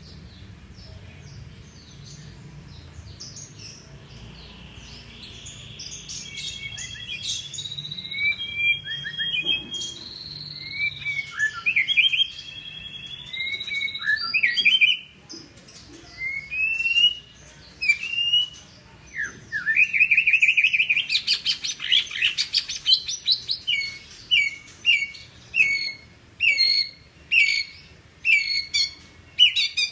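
White-rumped shama singing a long, varied song: soft notes building into clear whistles and slurred phrases, a fast rattling trill about two-thirds of the way through, then short loud phrases repeated a little over once a second near the end.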